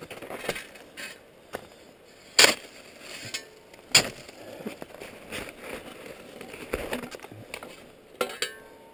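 Boots crunching irregularly over frozen, refrozen crusted snow, with two sharp, loud clicks about two and a half and four seconds in.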